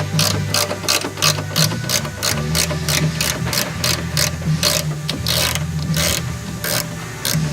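Ratchet wrench turning a suspension bolt, clicking in short strokes about three or four times a second.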